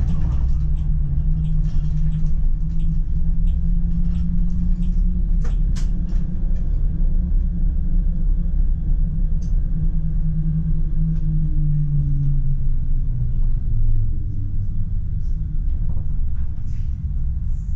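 PESA Swing low-floor tram running on narrow-gauge track: a steady low rumble of wheels on rails with the hum of the traction motors and scattered clicks over the track. About two thirds of the way through, the motor hum slides down in pitch and the rumble eases as the tram slows.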